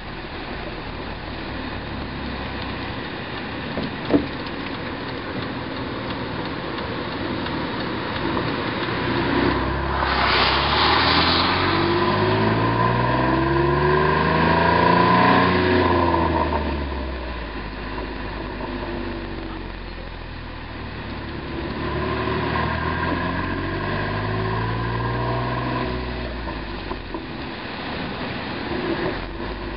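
3.8-litre V6 of a 2010 Jeep Wrangler JK through an MBRP aftermarket exhaust, its note rising and falling twice as the engine revs up and back down. A single sharp pop comes from the exhaust about four seconds in.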